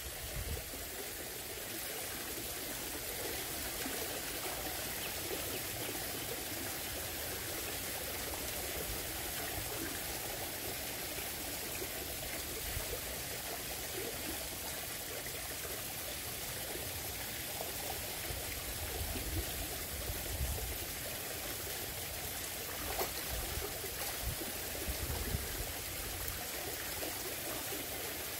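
Steady rush of running water, with a few brief low rumbles in the second half.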